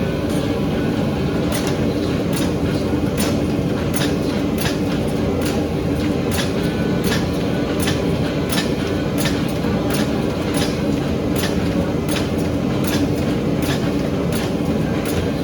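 Forging equipment running with a steady, loud roar, overlaid by irregular sharp ticks about one to two a second.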